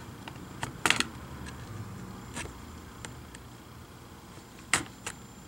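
A few short, sharp clicks and scrapes as a metal spudger pries between the plastic keyboard assembly and the case of an HP Chromebook 14 G5, one about a second in and two close together near the end.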